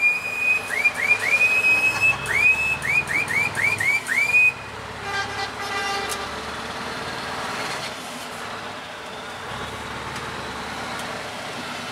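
A high-pitched air horn tooted about ten times in quick succession, each toot sliding up in pitch as it starts, stopping at about four and a half seconds. After that the Scania R500's V8 diesel runs steadily, heard from inside the cab, with a fainter, lower horn about six seconds in.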